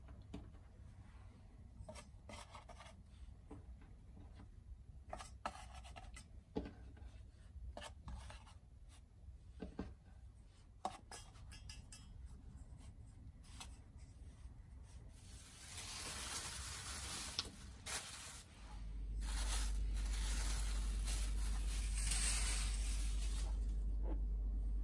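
Hands handling floured balls of bread dough and setting them into a metal baking pan: scattered soft taps and rubbing. In the last third comes a steadier rustling hiss, and a low steady hum starts about three quarters of the way in.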